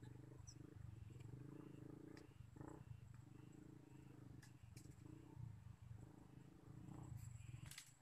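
Near silence: a faint, steady low rumble.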